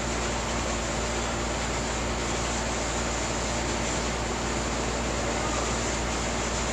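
Steady background noise, an even hiss over a low hum, with no change or distinct events.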